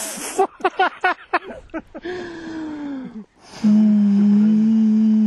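A man's voice singing a wordless victory fanfare: a quick run of short notes, then a long, loud held note that drops away at the end.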